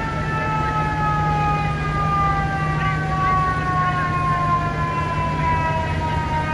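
Fire apparatus siren wailing, its pitch falling slowly and steadily after a quick rise just before, over a steady low drone of traffic.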